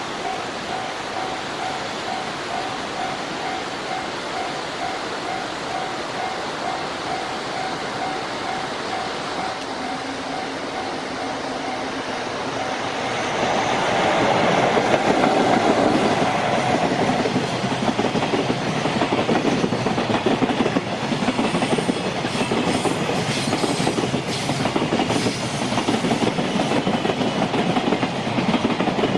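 Japanese level-crossing warning bell dinging in an even, rapid rhythm. About 13 seconds in, a JR Freight train arrives and passes, louder than the bell. Its wagon wheels clatter steadily over the rail joints and drown out the bell.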